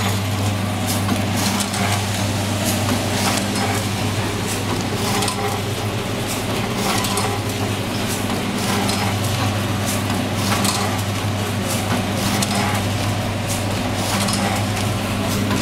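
Granule packing machines running: a steady low electric hum with irregular clicking and clattering from the working mechanism.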